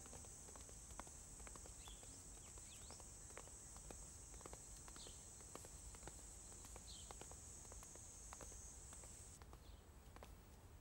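Faint footsteps of a person walking, a step about every second, over a steady high-pitched hiss of outdoor ambience with a few short high chirps. The hiss cuts off about nine seconds in.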